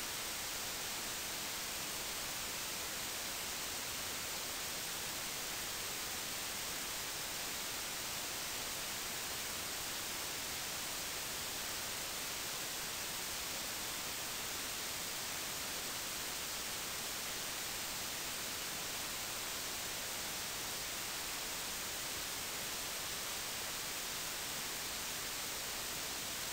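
Steady, unchanging hiss of static with no other sound.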